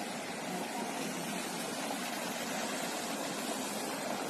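Shallow stream running over rocks and stones in a riverbed: a steady rush of water.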